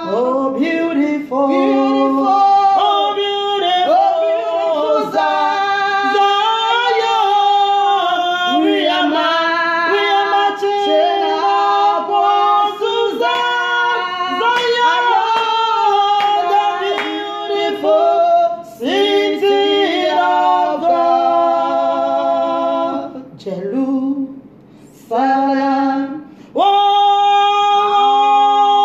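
Two women singing a worship song together, their voices sustained and shifting in pitch, with a short break in the singing a few seconds before the end.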